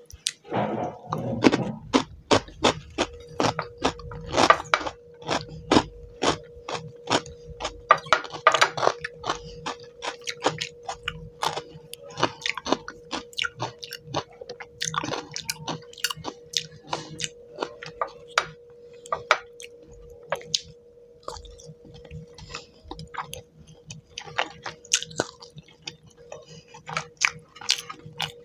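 Close-miked eating of rice and fish curry: wet chewing and lip smacks with many sharp, irregular mouth clicks and some crunching, over a faint steady hum.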